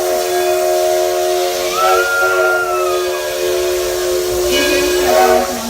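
Steam locomotive's chime whistle blowing one long blast, several tones sounding together over a steady hiss, cutting off near the end.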